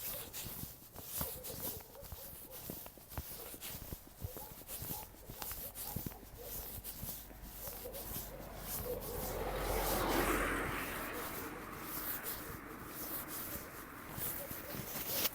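Footsteps on a path, roughly one a second. A rushing noise swells to a peak about two-thirds of the way through, then fades.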